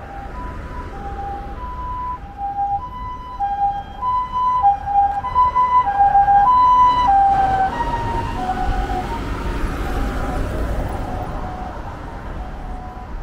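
Japanese ambulance's two-tone electronic siren alternating high and low ('pee-po, pee-po'), growing louder as it approaches. About seven seconds in, as it passes, both tones drop in pitch and then fade as it drives away, over road traffic rumble.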